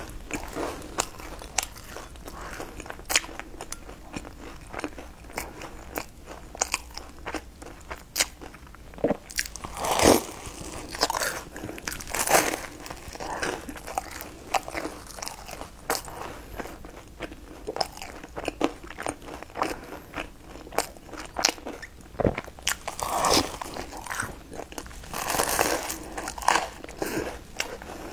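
Close-up mouth sounds of a person biting and chewing a crispy fried pastry: a steady run of irregular crisp crackles, with a few louder crunchy bites.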